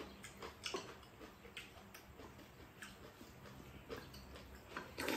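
Wooden spoons and chopsticks clicking against ceramic bowls while eating a rice bowl: scattered light clicks, with a louder knock near the end.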